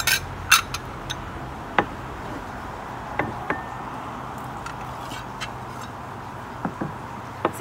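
A bag rustling near the start, then light clinks and taps as small plates are taken out and set down on a cloth-covered table, one with a short ring, over a steady background rush.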